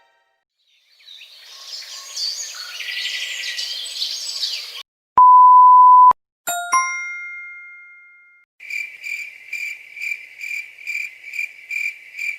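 A run of short stock sound effects: first a few seconds of dense high chattering, then a one-second steady beep, then a bright ding that rings out, and last a high pulsing beep or chirp repeating about two and a half times a second.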